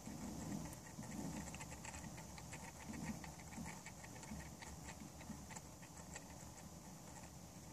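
Faint irregular ticking over a soft low rumble from a small motorized display turntable slowly rotating a toy.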